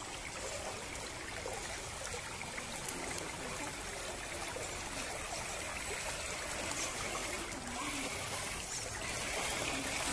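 River water flowing and trickling steadily around the microphone.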